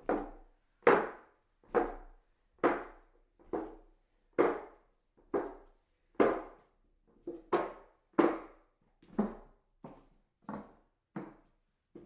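Footsteps climbing hollow wooden stairs: a steady tread of about one step a second, each a hollow knock with a short ring.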